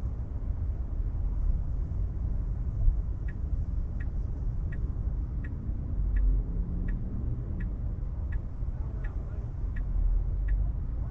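Inside a Tesla Model 3's cabin, a low steady rumble of the car rolling over wet pavement. About three seconds in, the turn-signal indicator starts ticking, about three ticks every two seconds, as the car pulls into a parking spot.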